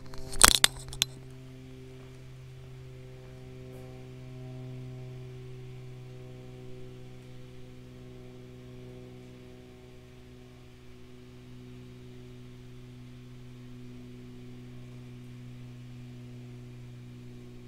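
Steady low hum with several evenly spaced overtones, and a few sharp knocks in the first second.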